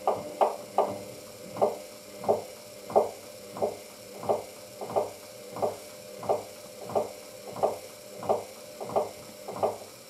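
Hoover DYN9144D3X washing machine drum turning slowly in a load-distribution attempt before the spin, wet laundry thudding in the drum about three times every two seconds over a faint motor hum. The machine keeps failing to balance the load and reach spin.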